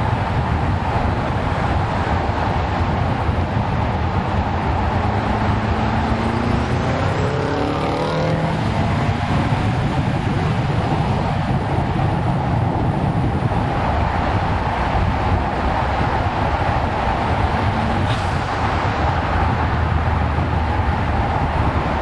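Steady tyre roar and wind rush from a 2002 Audi S4 driving at speed, picked up by a camera mounted low on the car's body beside the wheel. About seven seconds in, an engine note climbs in pitch.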